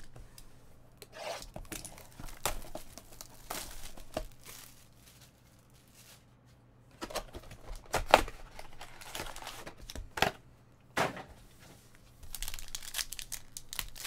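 A cardboard trading-card hobby box being torn open, then a foil card pack ripped and crinkled open: a string of short rips with a few sharp snaps.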